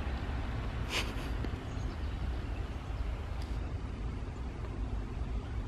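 Outdoor background noise: a steady low rumble, with a short hissing rustle about a second in.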